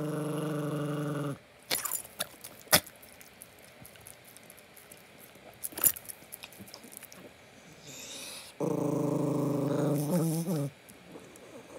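Chihuahua growling in two long held growls, the first about a second long and the second about two seconds long, wavering near its end, with a few sharp clicks in between.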